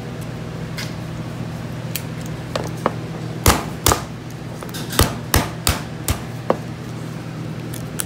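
A run of sharp knocks and cracks, about seven strong ones between three and a half and six and a half seconds in after a few lighter taps, as lobster shell is broken open to get the meat out. A steady low hum runs underneath.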